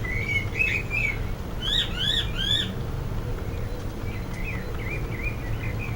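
A songbird singing in short chirps and warbles, with three loud rising-and-falling notes about two seconds in, over a steady low rumble.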